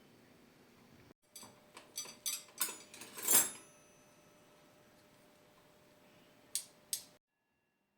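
A quick run of light clicks and clinks, about seven in two seconds, then two more near the end: kitchenware such as dishes or cutlery being handled.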